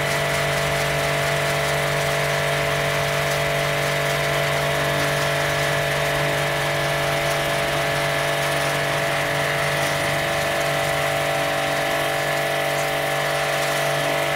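StarQ W3 1800-watt electric pressure washer running steadily as it blasts a wall, a steady machine hum with the hiss of the high-pressure water jet.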